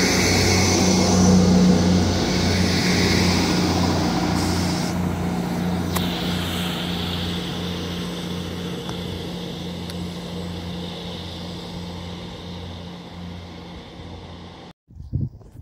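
Class 158 diesel multiple unit pulling away from the platform: its diesel engines run with a steady, pulsing drone under the hiss of wheels on rail, and the sound fades as the train recedes. The sound cuts off suddenly near the end, followed by a brief thump.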